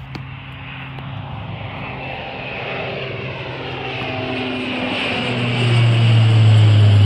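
Bombardier Dash 8 Q400 turboprop climbing out after takeoff, its twin Pratt & Whitney PW150A engines making a steady low propeller hum with a higher whine. It grows steadily louder as the plane comes overhead and is loudest near the end.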